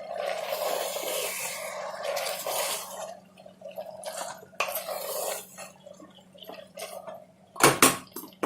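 Spoon stirring spinach into the meat masala in a cooking pot: a wet scraping and sizzling for the first few seconds and again briefly midway, then a few sharp clinks of the spoon against the pot near the end.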